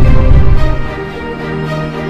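Cinematic soundtrack music with sustained held notes; the heavy bass fades out about half a second in, leaving it softer.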